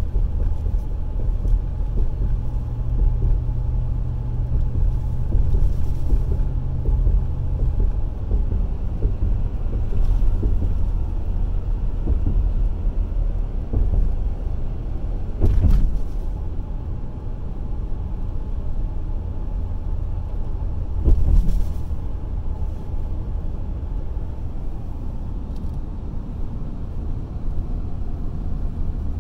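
Car driving, heard from inside the cabin: a steady low engine and tyre rumble, with a low steady hum in the first third and two brief thumps, one near the middle and one about two-thirds through.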